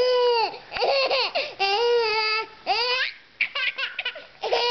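Baby laughing hard: a string of long, high-pitched squealing laughs, then shorter choppy bursts near the end.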